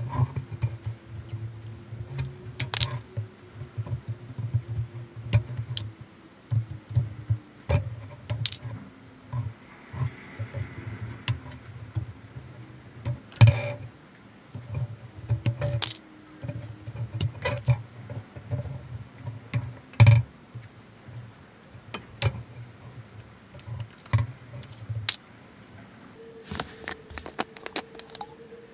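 Sprue nippers snipping clear polystyrene model-kit parts off their runner: sharp, irregular clicks, a dozen or more, over the rustle and handling of the plastic sprue.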